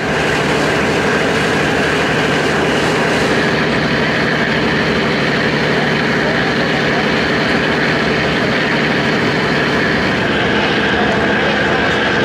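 Passenger ferry's engine droning steadily underway, with the rush of water churning in its wake.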